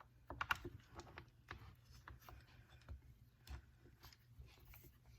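Faint, scattered clicks and taps of a compression tester's metal fitting and hose being handled against a chainsaw engine, with a small cluster about half a second in.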